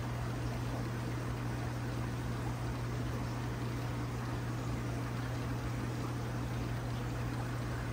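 Aquarium circulation pump running with a steady low hum, and a constant rush of water flowing into the tank from the return pipe.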